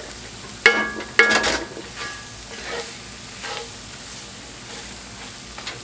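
Onion, garlic, flour and butter gravy base sizzling in a hot pan while it is stirred. A metal utensil strikes the pan twice, loudly and ringing, about a second in, followed by a few softer clinks.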